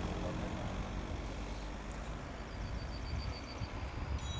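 Wind buffeting the microphone in an open field, a steady, uneven low rumble. A short run of about eight quick high-pitched chirps rises above it in the middle.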